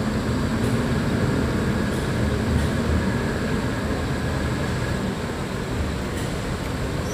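Coach bus's diesel engine running as the bus pulls slowly away, a steady low rumble that eases off slightly over the last few seconds.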